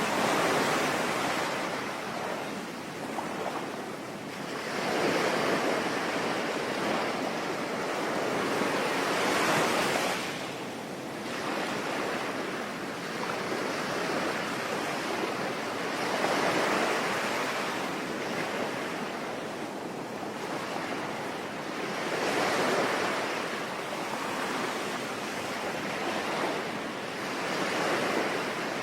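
Sea waves breaking and washing in, swelling and falling back about every five to six seconds, over a steady hiss of rain.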